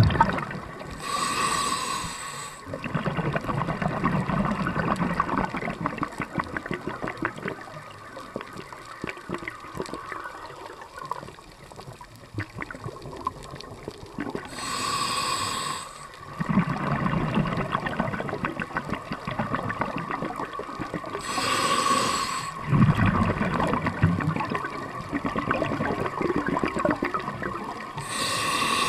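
Scuba diver breathing through a regulator underwater: four breaths, each a short hiss followed by a low burble of bubbles, roughly every six to seven seconds.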